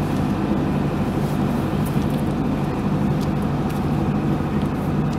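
A low, steady engine drone with no changes in speed.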